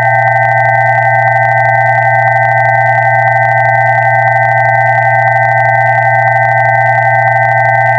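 Electronically generated pure tones held steady and unchanging: a low hum together with several higher tones sounding at once.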